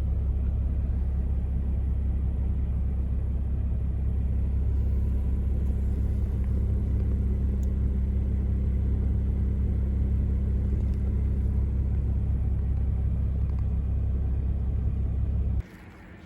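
Toyota Land Cruiser 80 running, a steady low rumble that cuts off abruptly near the end.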